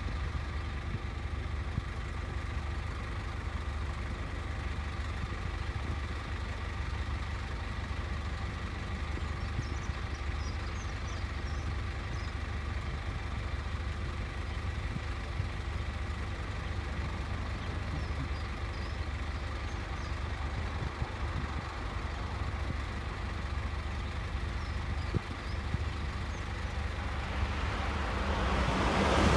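Steady low rumble with a few faint steady tones and occasional faint high chirps. In the last couple of seconds the noise of an approaching East Coast electric express train swells quickly.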